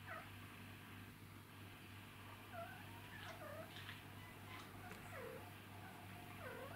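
Dog whining faintly in about six short, high cries that glide down in pitch, spread over several seconds: a hungry dog begging for food.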